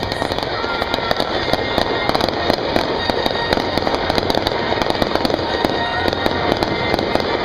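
Fireworks crackling: a dense, continuous stream of rapid small pops from glittering crackle stars bursting overhead.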